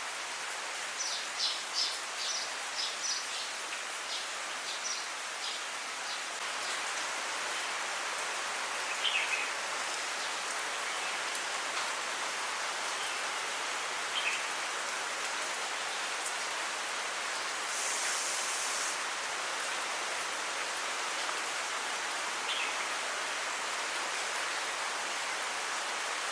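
Steady monsoon rain falling. A songbird gives a quick run of short high chirps in the first few seconds, and single short falling calls come a few times later.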